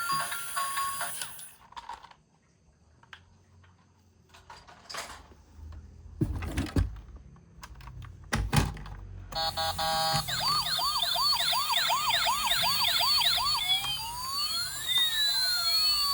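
Battery-powered toy vehicle's electronic siren sound: fast repeating yelping chirps, then slower sweeps rising and falling. Before it, plastic toys knock and click, with two louder thumps.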